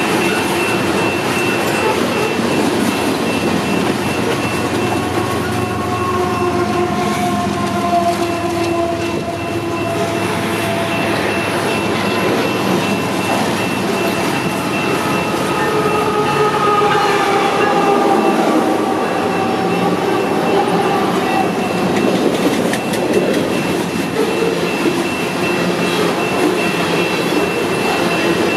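Freight train rolling past on the rails with a steady running noise, and several drawn-out tones above it that slowly slide in pitch.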